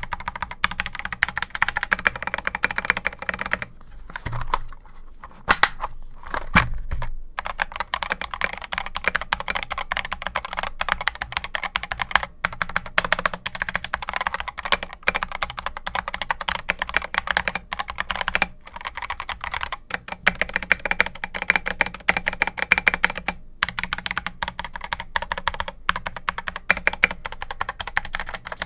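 Akko 3061S World Tokyo R2 mechanical keyboard being typed on fast and continuously: a dense run of keystroke clacks from its Akko Jelly Pink switches and PBT keycaps, in a plain sandwich case with no foam inside. The typing stops briefly a few times.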